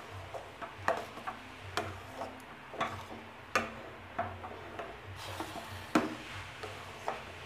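A ladle stirring thick, wet rava pongal in a stainless steel pan, scraping through the mash with irregular knocks against the pan's sides. The sharpest knock comes about six seconds in.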